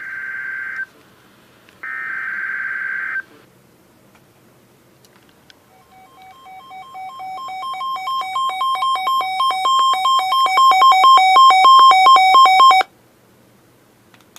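Emergency Alert System signal. First come two short, harsh bursts of the digital header data, about a second apart. A few seconds later a pulsing two-tone alert tone grows steadily louder for about seven seconds, then cuts off abruptly.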